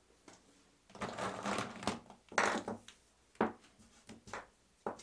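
Plastic lip balm tubes clattering and rustling as they are taken out of a plastic bowl and set down on a paper towel, in several short bursts.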